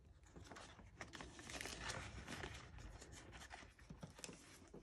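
Faint rustling and crinkling of paper bills and clear plastic binder pockets as cash is handled and tucked into a savings-challenge binder and its pages are turned.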